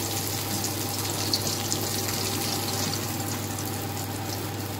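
Breaded chicken fillets deep-frying in hot oil: a steady crackling sizzle, with a couple of short sharp ticks about a second and a half in as a slotted spoon works in the pan.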